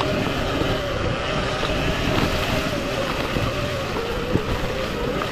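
Sur Ron Ultra Bee electric dirt bike riding a dirt trail: a steady electric motor whine over the noise of the chain and tyres, with a single knock about four seconds in.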